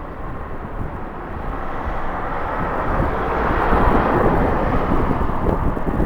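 Jet airliner engines, a rushing roar growing steadily louder over several seconds as the aircraft nears, with strong wind buffeting the microphone underneath.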